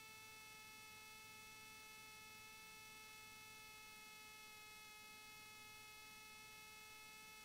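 Near silence with a faint, steady electrical hum of several even tones.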